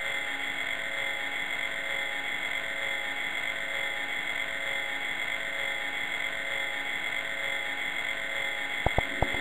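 Electronic drone from a 64k demoscene intro's soundtrack: a steady, noisy chord of several held tones. A few short, sharp drum hits come near the end.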